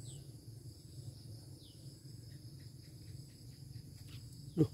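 Crickets and other insects chirring steadily, with a couple of short falling bird chirps and a brief run of quick ticks a little past halfway. Near the end, a sudden loud sound sweeps sharply down in pitch.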